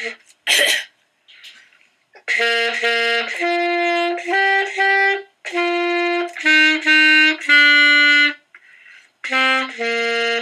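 An amateur saxophone plays a halting run of short, separate notes in small groups with brief gaps between them, starting about two seconds in. A short noisy burst comes just before, about half a second in.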